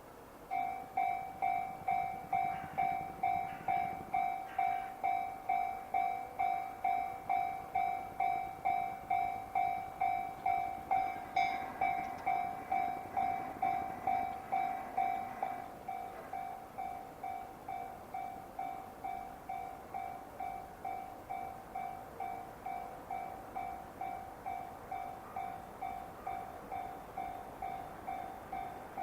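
Japanese railway level-crossing alarm ringing its electronic ding about twice a second, starting about half a second in and dropping in level after about 16 seconds. Under it, rail noise from a train running over the crossing is heaviest in the middle.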